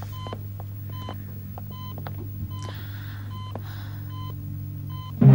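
Hospital patient monitor beeping: short, same-pitched electronic beeps repeating about once or twice a second over a steady low hum. Music swells in at the very end.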